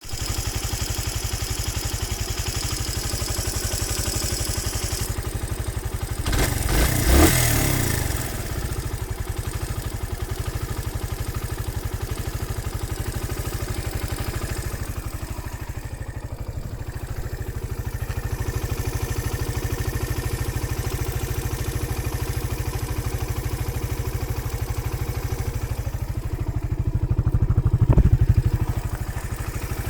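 Suzuki DR125SM's single-cylinder four-stroke engine idling warm, revved briefly twice: about six seconds in and again near the end. The owner is unsure whether this sound is normal.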